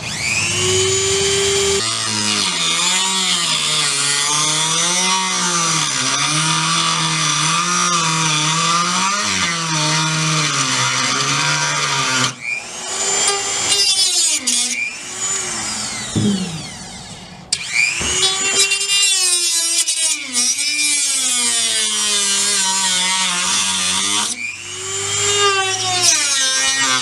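Dremel rotary tool cutting through a pickup's bed and plastic bed liner, its loud whine wavering up and down in pitch as the load on the cutting wheel changes. It briefly eases off twice, about halfway through and a few seconds later, then bites in again.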